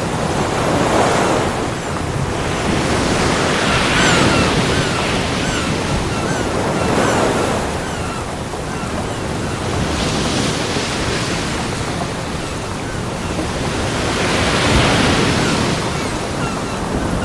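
Ocean waves breaking on a beach: a steady wash of surf that swells with each wave about every three to four seconds.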